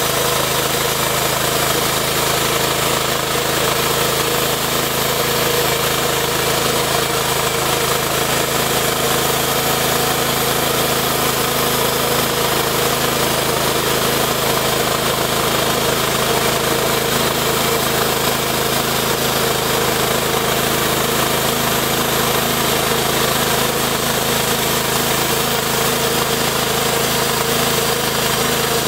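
Two-post bandsaw mill's small engine running steadily under load as its band blade cuts lengthwise through a log.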